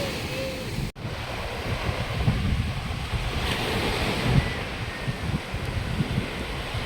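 Sea surf washing with wind buffeting the microphone in low gusts; the sound drops out for an instant about a second in.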